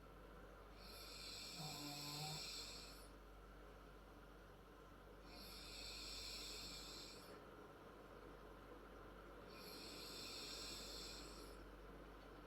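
A 10-year-old girl snoring faintly: three hissy snores about four seconds apart, each lasting about two seconds, the first with a short low hum in it.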